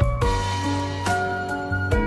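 Background music: gentle melodic notes over a steady bass line, the notes changing about every half second.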